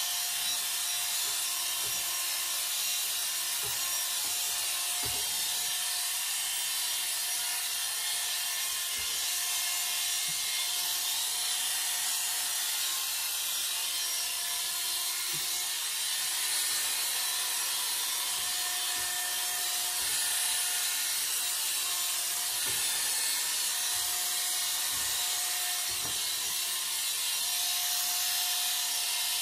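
Corded electric hair clippers running steadily as the blades cut through about four weeks of short regrowth on a scalp.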